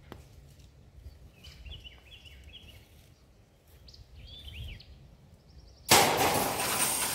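Faint bird chirps, then about six seconds in a sudden loud metallic crash that rings and slowly fades: a wire livestock panel coming down on the steel deck of an old car-hauler trailer.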